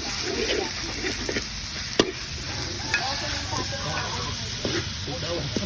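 Chicken nuggets frying in hot oil with a steady sizzle, and a few sharp clicks from a utensil, about two seconds in and near the end.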